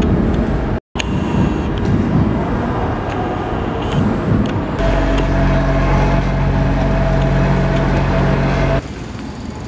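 Busy city and station background noise. From about the middle, the steady hum of a vehicle engine runs for around four seconds, then cuts to quieter street noise near the end.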